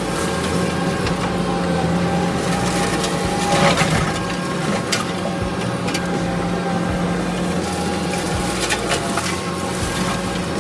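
Kubota SVL65 compact track loader's diesel engine running steadily while its brush cutter chews through brush, with sharp cracks of breaking wood a few times, the loudest about three and a half seconds in.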